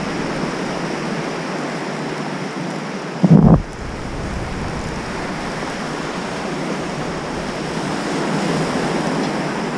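Shallow surf washing in and out at the waterline, with wind on the microphone. About three seconds in there is one brief, loud low thump.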